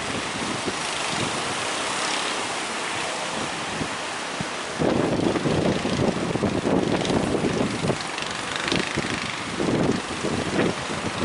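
Wind buffeting the microphone over the rush of breaking surf, with a louder surge of wave noise about five seconds in and more surges near the end.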